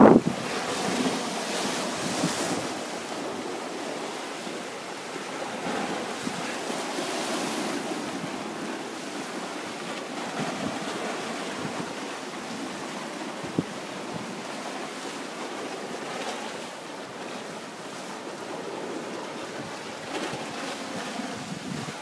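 Sea surf washing and churning against a rocky shoreline, swelling in level every few seconds, with wind on the microphone.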